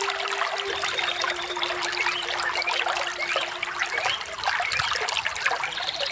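Small waterfall splashing and trickling steadily.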